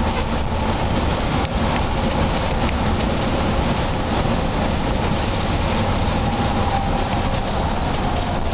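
Steady engine and road rumble heard inside the cabin of a moving intercity bus.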